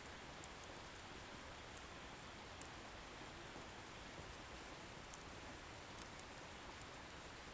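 Wood bonfire burning: a faint, steady hiss with a few sparse, small crackles from the firewood scattered through it.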